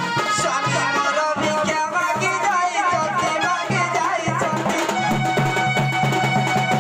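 Traditional folk music: a melody over a steady hand-drum beat, with a quick ornamented run in the first few seconds before the tune settles onto held notes.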